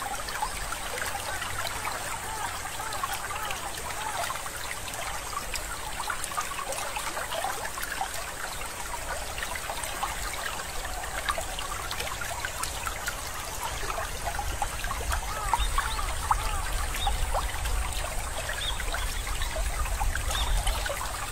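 Water trickling and babbling steadily. A low rumble underneath grows louder about fifteen seconds in.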